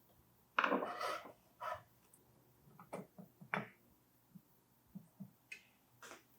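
Small hard objects being handled: a short scraping rustle about half a second in, then a series of light knocks and clicks.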